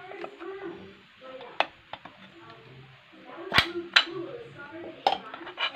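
Sharp metallic clicks and taps of a screwdriver and parts against a CVT transmission's case, about five in all, the loudest two close together about halfway through.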